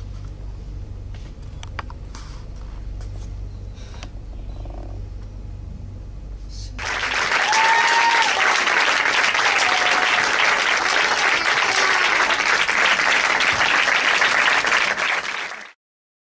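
A low steady hum with a few faint clicks, then about seven seconds in an audience breaks into applause that carries on for roughly nine seconds before cutting off abruptly.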